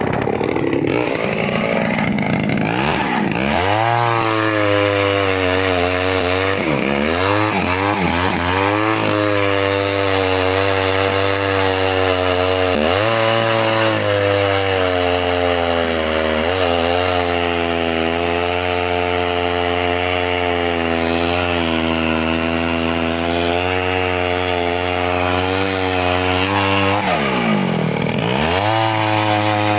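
Chainsaw running at high revs while cutting wood. The revs climb in the first few seconds, then drop and climb back several times, around eight seconds in, near thirteen seconds and near the end.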